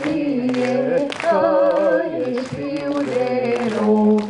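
A group of voices singing together unaccompanied, holding long notes in harmony, some with vibrato.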